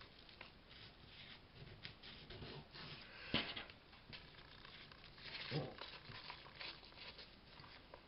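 Faint handling of paper and fabric on a craft table: light rustles and taps, a sharper knock about three and a half seconds in, and a longer rustle a couple of seconds later.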